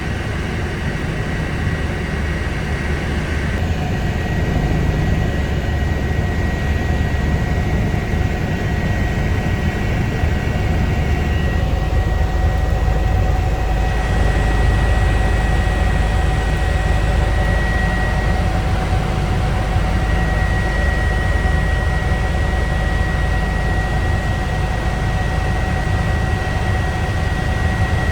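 Eurocopter EC145 twin-turbine helicopter running steadily: a heavy low rumble from rotor and engines with a steady high turbine and gearbox whine. The tone shifts slightly about three seconds in and again about halfway through.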